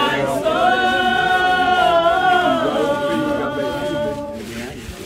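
A group of voices singing unaccompanied, with long held notes that fade away about four seconds in.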